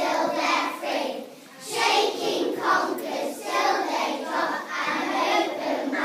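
A group of young children singing together, with a short break between lines about a second and a half in.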